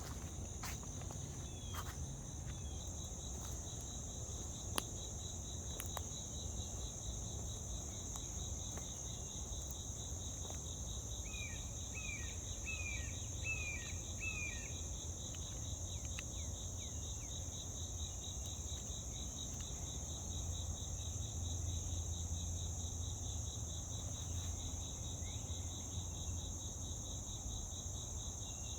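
Steady chorus of insects: two unbroken high trills over a low hum. About twelve seconds in, a bird gives a short series of five quick down-slurred notes.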